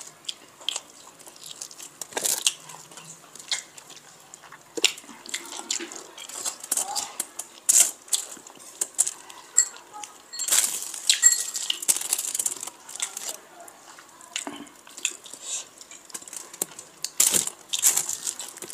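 Fingers scraping and patting a sheet of aluminium foil to pick up the last scattered grains of curry rice, the foil crinkling in short irregular crackles, densest about halfway through.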